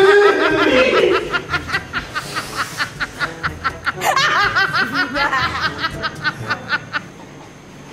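Men laughing hard in rapid rhythmic bursts, a fresh louder round breaking out about four seconds in before the laughter trails off near the end, with music underneath.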